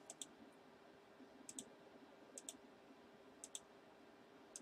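Computer mouse button clicked about once a second. Each click is a quick pair of sharp ticks, press then release, over a faint steady hum.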